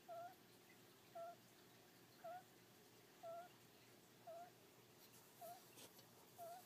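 Hedgehog snoring in its sleep: a faint short note with a little wavering pitch on each breath, repeating about once a second.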